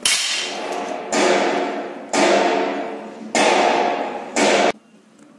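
Hammer blows on a motorcycle crankshaft's flywheel, five strikes about a second apart, each leaving the steel ringing: the crank is being knocked true on its high side. The last ring cuts off suddenly near the end.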